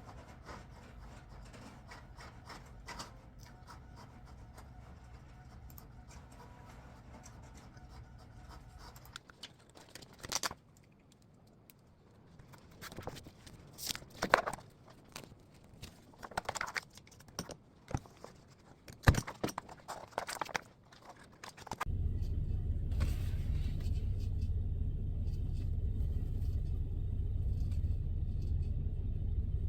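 Scattered clicks and scrapes of small objects being handled, then, about two-thirds of the way through, a steady low rumble starts suddenly: the running noise of a moving train heard from inside the carriage.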